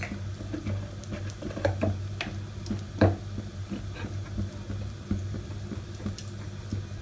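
Oil heating in a black iron kadai on the stove for tempering: faint scattered ticks and small crackles, with one sharper tick about three seconds in, over a steady low hum.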